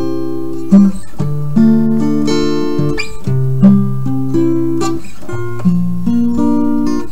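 Background music on acoustic guitar, chords and notes changing about every second.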